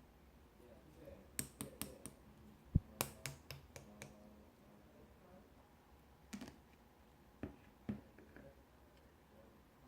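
Slime being pressed and squeezed by hand, giving sharp little clicks and pops in short irregular runs, with one dull thud about three seconds in.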